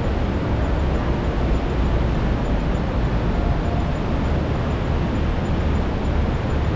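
Trümmelbach Falls, glacial meltwater pouring through its rock gorge inside the mountain: a loud, steady rush of water, heaviest in the deep rumble.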